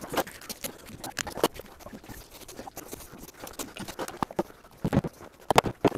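Irregular light clicks and knocks of hand work at a siding corner post, with a few sharper knocks about a second and a half in and again near the end.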